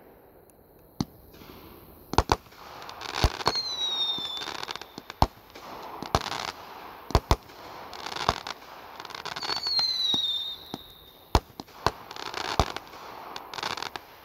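Consumer aerial fireworks going off one after another: about a dozen sharp bangs, some in quick pairs, with crackling hiss between them. Twice, about 3.5 and 9.5 seconds in, a short whistle falls slightly in pitch.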